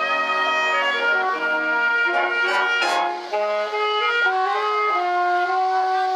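A high school wind band playing: brass and woodwinds hold chords that change every second or so, with a short sharp hit about three seconds in.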